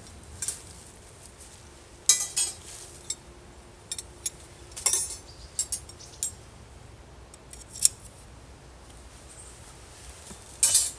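Metal camp-cooking gear, kebab skewers and a small wire grill, clinking and rattling as it is handled and unpacked: a scattered series of short metallic clinks, with busier clusters about two and five seconds in and again near the end.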